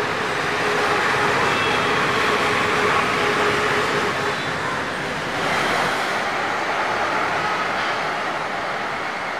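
Road traffic noise: a steady rush of passing vehicles, swelling briefly about halfway through.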